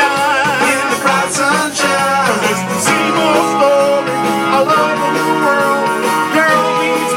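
A live soul band playing, with a singer's voice over electric guitar and backing instruments.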